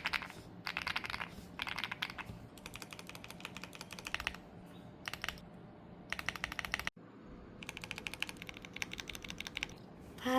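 Mechanical keyboard being typed on: runs of rapid key clicks in bursts with short pauses between them, and a brief break about seven seconds in.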